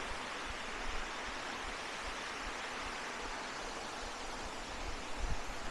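Steady rushing of a jungle stream, an even hiss of running water, with a low bump near the end.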